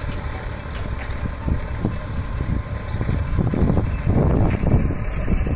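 Tractor engine running under load as it pulls a plough through hard dry soil, heard from a distance, with wind buffeting the microphone as an uneven low rumble.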